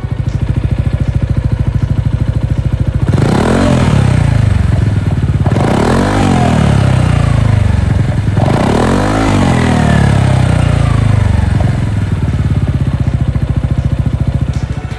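Yamaha XMAX scooter's single-cylinder engine idling through a BEAMS R-EVO heat titanium slip-on silencer, blipped three times a few seconds apart, each rev rising quickly and falling back to a steady idle.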